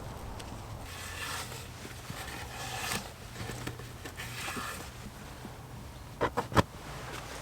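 Three rustling, scuffing swishes a second or two apart, like movement through dry leaf litter, then three quick sharp knocks about six seconds in, the last the loudest.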